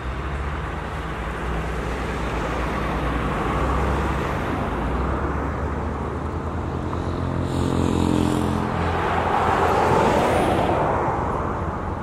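Road traffic: cars passing close by, a steady mix of engine hum and tyre noise, with one vehicle passing loudest about ten seconds in.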